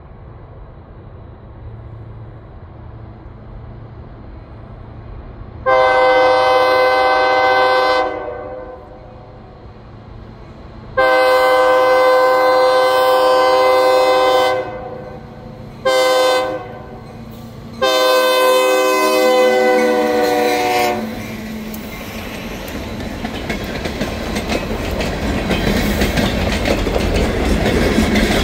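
Diesel locomotive air horn of Escanaba & Lake Superior ELS 502 sounding the grade-crossing signal, long, long, short, long, several tones at once, over the engine's rumble. After the last blast the train's rumble and wheel noise grow steadily louder as it reaches the crossing.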